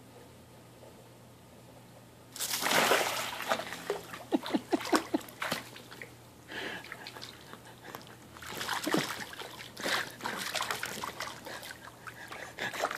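Pool water splashing as a green iguana drops into a swimming pool about two seconds in, then repeated splashes and sloshing in bursts as it thrashes at a floating toy and swims.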